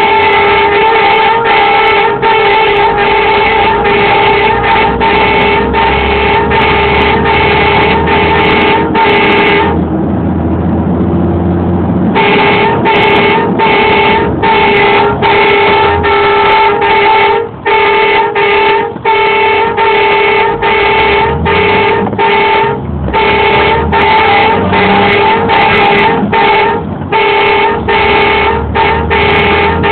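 A tow truck's warning horn sounding in fast, even pulses, about two or three a second, at one steady pitch, to clear a way through stopped traffic. It breaks off for about two seconds roughly a third of the way in, leaving the truck's engine running, then starts again.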